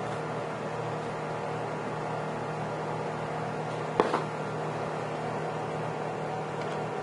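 A steady machine hum runs throughout. About four seconds in, a plastic bowl knocks once sharply against the countertop as it is handled, with a lighter knock just after.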